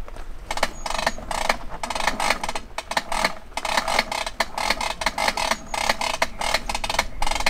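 A truck-mounted hose reel turning as the hose is pulled off it in repeated tugs. Each pull sets off a short burst of rapid clicking from the reel.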